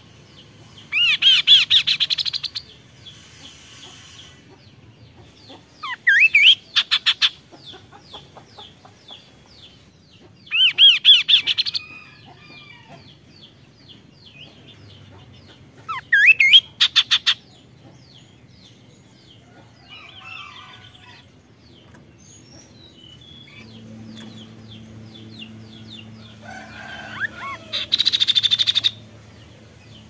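Chestnut-capped babbler (kaso-kaso) singing: five loud bursts of song a few seconds apart, each a quick rising whistle that runs into a rapid string of repeated notes lasting about a second. Fainter chirping carries on between the bursts.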